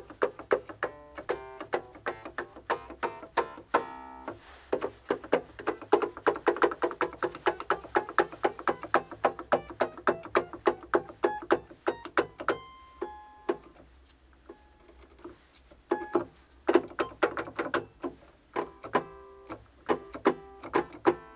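Hohner Clavinet played with no amplification: its freshly retipped rubber hammers strike the strings in quick runs of short, plucky notes and chords. It is a first playing test after the re-tipping, with a sparser stretch of a few notes about two thirds through.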